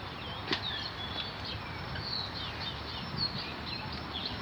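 Many birds chirping in quick, overlapping short calls over a steady low background hum, with one sharp click about half a second in.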